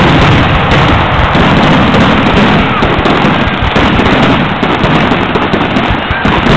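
Fireworks finale: aerial shells bursting in a rapid, unbroken barrage, very loud and dense with overlapping bangs.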